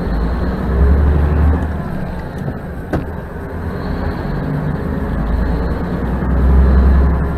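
Tractor-trailer's diesel engine and road noise heard inside the cab, a steady low rumble that swells twice. A sharp click about three seconds in.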